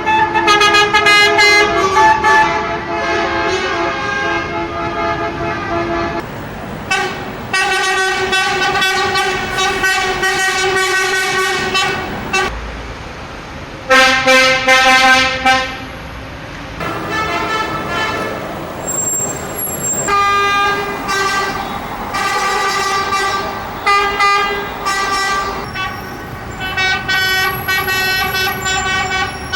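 Many coach horns honking at once in long, overlapping blasts, with short breaks between. A louder, lower horn sounds for about a second and a half roughly halfway through, and the honks grow shorter and choppier toward the end.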